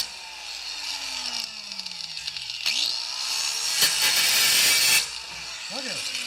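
A power tool winds down just after being switched off from cutting sheet steel, its hum falling steadily in pitch over about two seconds. A few light clicks and some scraping follow as the metal is handled.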